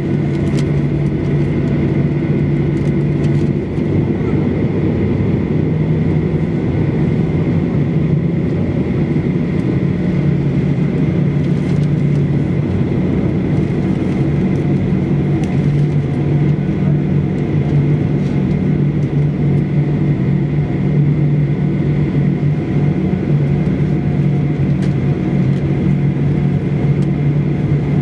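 Cabin noise beside the wing of a Boeing 737-800, its CFM56 jet engines running steadily at ground idle: a constant low drone with a thin, steady high whine over it.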